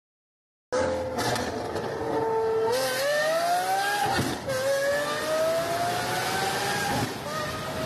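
Lamborghini Aventador's V12 engine accelerating hard, climbing in pitch through the gears with upshifts about four and a half seconds in and again near the end. It starts after a brief silence.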